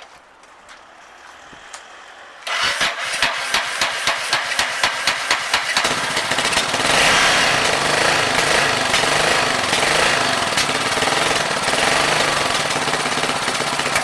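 Yamaha SRX600 single-cylinder four-stroke engine cranked by its electric starter, the compression pulses quickening, then catching about six seconds in and running steadily. It has a poor idle, put down to a torn intake manifold.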